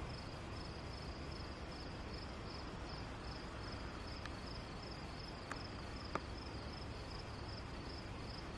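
Crickets chirping steadily at night, a high-pitched pulse repeating about twice a second over a faint background hiss. A few faint clicks fall around the middle.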